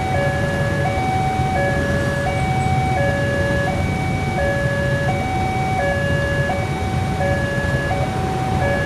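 Railroad crossing warning alarm sounding continuously: two electronic tones, one higher and one lower, taking turns about every half second, warning that a train is approaching. A steady low rumble runs underneath.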